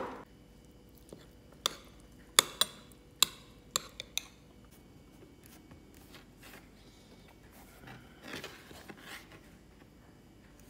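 Several sharp clicks and knocks of kitchenware in the first few seconds. Near the end comes about a second of soft scraping as a kitchen knife scrapes the skin of a long purple eggplant on a plastic cutting board.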